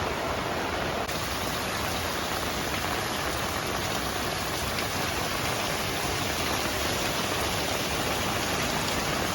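Steady rush of falling water from heavy rain and a rain-fed waterfall, an even hiss with no breaks.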